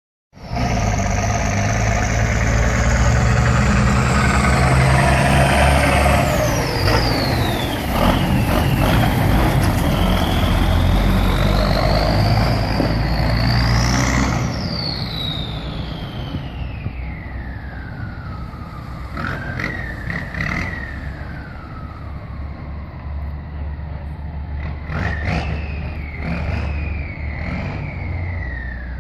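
AM General M35A2 truck's turbocharged multifuel inline-six running under way, with a loud turbocharger whistle over the engine's rumble. The whistle climbs in pitch over the first few seconds, drops, climbs again to a peak about halfway through, then falls away slowly, with short rises near the end as the throttle comes back on.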